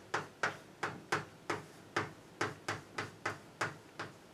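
Chalk writing on a blackboard: a run of sharp taps, about three a second, that stops shortly before the end.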